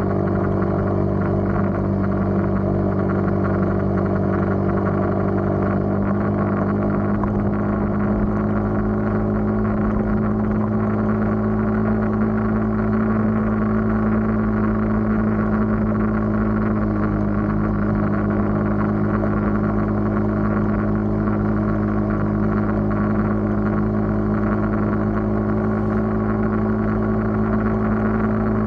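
Engine of a moving road vehicle running at a steady cruise, a continuous even drone whose pitch drops slightly about six seconds in.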